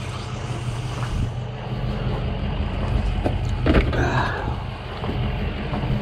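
An engine idling steadily with a low, even hum, with a sharp knock a little before the middle and a brief clatter just after it.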